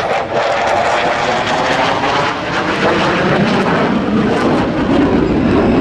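F-15 fighter jet's twin engines: loud, steady jet noise as the jet passes close by and pulls away.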